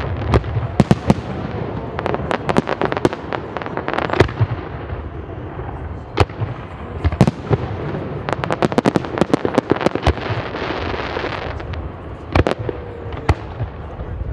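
Aerial firework shells bursting in a volley of sharp bangs at irregular intervals, with bursts of rapid crackling from the stars, densest about two and eight to ten seconds in.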